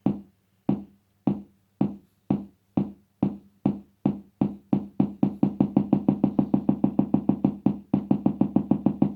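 Twin T oscillator kick drum circuit on an electronic project kit sounding through a speaker: short, quickly decaying pitched thumps at a steady beat, each triggered by a tempo circuit. The beat speeds up from under two hits a second to a rapid machine-gun pulse of several hits a second about halfway through.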